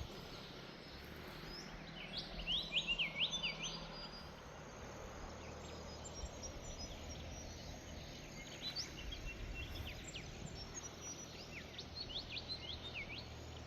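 Birds calling in quick bursts of sharp, sweeping whistled notes, a cluster about two seconds in and more from about halfway on. Under the calls are a steady background hiss and the faint low hum of a distant motor.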